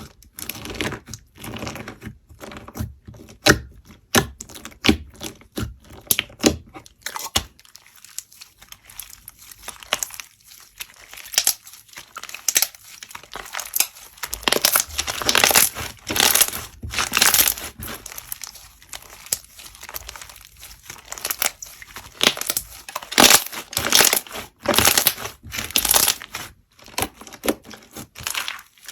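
Slime being squeezed and pressed by hand, giving off irregular crackling and crunching pops in clusters, thickest in the second half.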